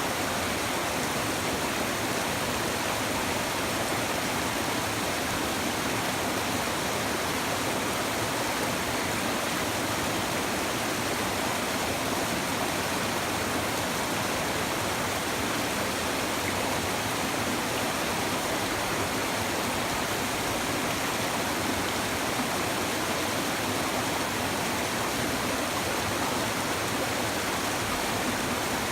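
A shallow river babbling: steady rushing and gurgling of flowing water, even throughout.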